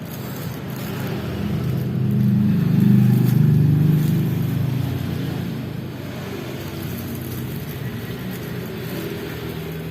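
A motor vehicle's engine passing close by, swelling to its loudest about three seconds in and then fading away.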